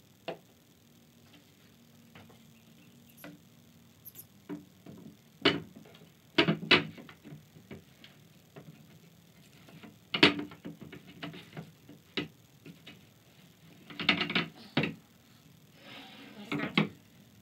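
Irregular knocks and clicks in short clusters a few seconds apart, from wooden chair parts and clamps being handled during glue-up.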